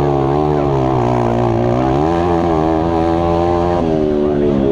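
Mini motocross bike's engine running hard under throttle, heard up close from on board, its pitch rising and falling as the rider works the throttle through the track.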